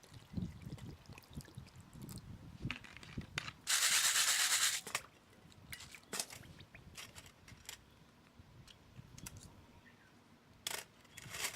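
Small hard parts being handled at close range, with scattered clicks, taps and rubbing, and one loud hiss lasting about a second near the middle.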